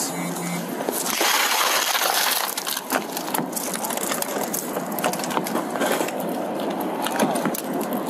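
A car's back window glass smashed in: a loud crash of breaking glass about a second in, followed by many small crackles and clicks as the shattered glass breaks up and falls.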